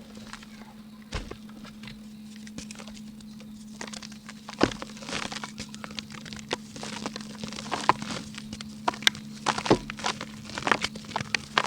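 Dry pink mud crumbled by hand: irregular sharp crackles and snaps, sparse at first and coming thick and fast from about halfway in.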